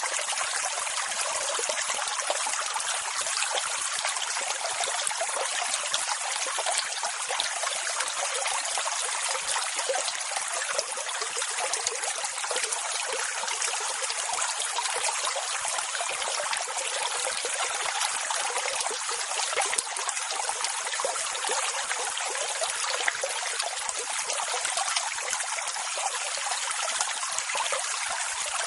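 Water rushing and trickling, a steady, even hiss with no rise and fall and little low rumble.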